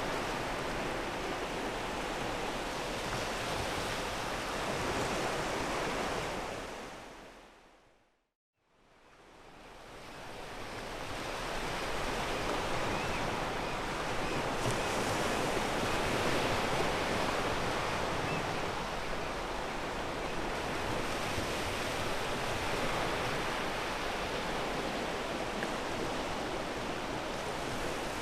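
Ocean waves washing steadily onto a pebble beach, a dense continuous rush of surf. About eight seconds in the sound fades out to silence and then fades back up over a few seconds.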